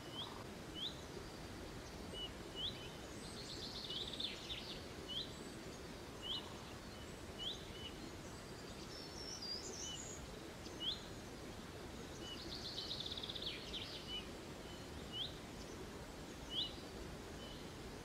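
Small songbirds. One repeats a short, high, rising call note about once a second, often followed by a lower short note, and another sings brief trilled phrases twice, over a steady low background hum.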